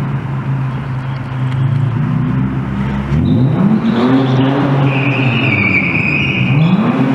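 Car being drifted: the engine runs steadily, then revs rise and fall twice, and the tyres squeal on the concrete for about a second and a half past the middle.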